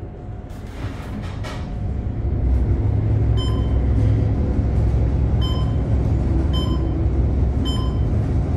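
Glass elevator car rising: a low rumble that builds over the first few seconds and then runs steadily, with a short high beep repeating about once a second.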